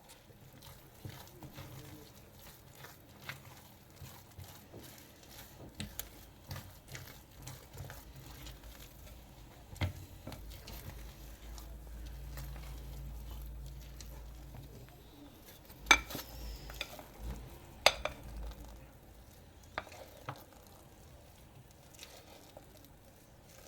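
A utensil stirring and scraping in a mixing bowl, with many small ticks and two loud sharp clinks against the bowl about two-thirds of the way in.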